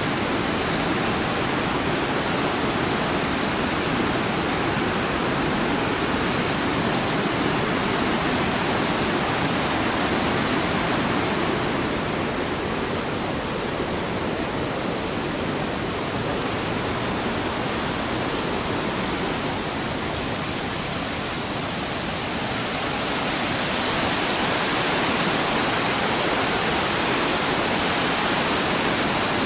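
Steady rushing noise of a large waterfall, thinning a little midway and growing brighter near the end.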